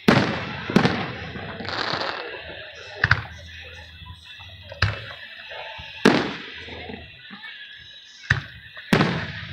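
Aerial firework shells bursting overhead: about seven sharp bangs at uneven intervals, each trailing off in an echo, with a short hiss about two seconds in.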